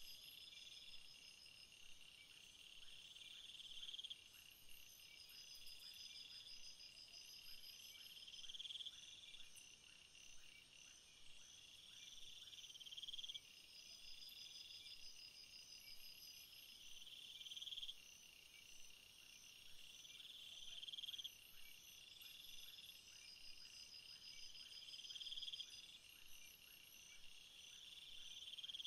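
Faint night chorus of insects: a high-pitched trill that swells and then cuts off every two to four seconds, over steadier pulsing calls.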